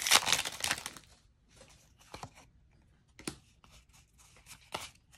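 Foil wrapper of a Pokémon Battle Styles booster pack crinkling and tearing as it is ripped open, for about the first second. After that come a few brief, soft rustles and taps as the cards are slid out and handled.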